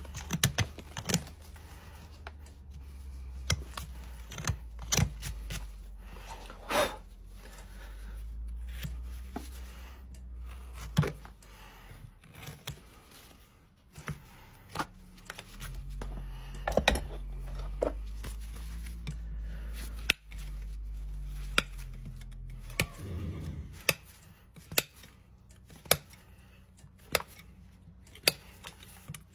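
Horse hoof being trimmed with farrier's tools: irregular sharp snips and clicks as the horn is cut, over a low steady hum.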